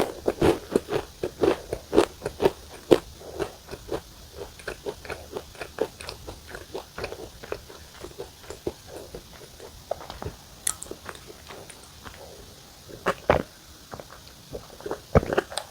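A person chewing crunchy biscuits close to the microphone: a quick run of sharp crunches that grows sparser over the second half, with a few louder bites near the end.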